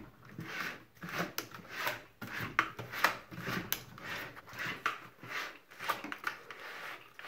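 Plastic water-softener control valve being screwed by hand onto the threaded neck of the resin tank: a rubbing, scraping sound with small clicks, repeated with each turn about every half second or so.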